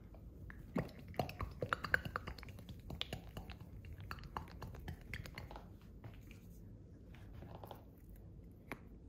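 Plastic squeeze bottle of acrylic paint being shaken by hand: a quick, irregular run of small clicks and knocks as the paint sloshes inside, thinning out after a few seconds. She shakes it because clear binder keeps coming out, which she takes for paint that isn't mixed well.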